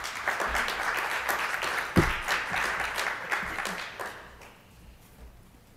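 Audience applauding, dying away about four seconds in, with a single thump about two seconds in.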